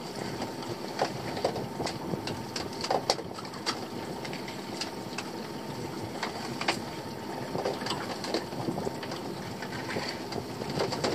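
Scattered clicks and knocks of a crab pot being worked on the boat's rail, over the steady noise of the boat's engine idling.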